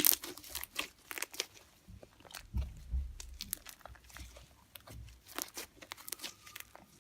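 Fluffy slime made with shaving foam being squeezed and kneaded by hand, giving irregular crackling and popping clicks, with a few soft low thumps in the middle.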